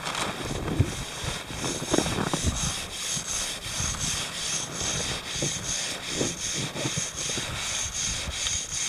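Hand saw cut back and forth through packed snow, a steady rasping in even strokes of about two to three a second, as a trench is cut out of the snowpack.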